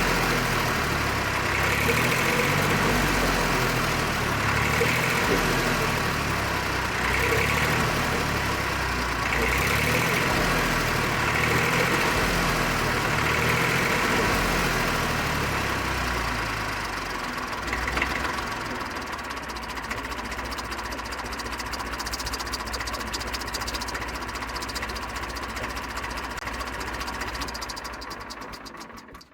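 Diesel engine of an old backhoe or tractor running, its sound swelling and easing about every two seconds for the first half, then steadier. It cuts off abruptly near the end.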